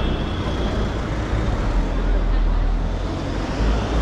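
City street traffic noise: vehicles running past with a steady low rumble, and voices of passers-by mixed in.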